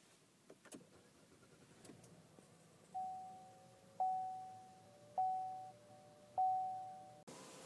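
A few small key clicks at the ignition of a Buick LaCrosse, then its dashboard warning chime sounding four times, about a second apart, each tone fading away, as the ignition is switched on.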